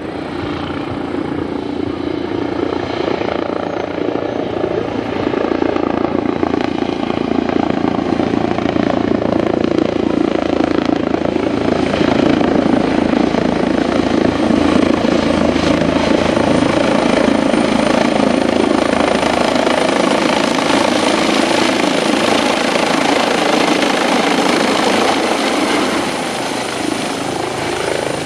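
Airbus EC135 twin-turbine rescue helicopter with its shrouded Fenestron tail rotor, approaching and coming in to land: the steady rotor and turbine noise builds as it flies overhead, then eases slightly near the end as it hovers low over the ground. A thin high whine rides over it, strengthening in the second half.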